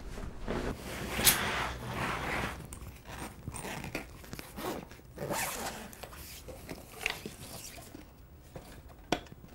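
A run of short rasping and rustling strokes, some rising in pitch, the loudest a little over a second in, with a sharp click near the end.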